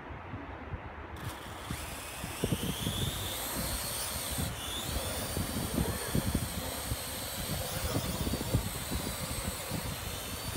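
Small electric quadcopter drone with propeller guards spinning up its rotors about a second in and lifting off. The high motor-and-propeller whine rises in pitch over the next couple of seconds, then holds steady while it flies.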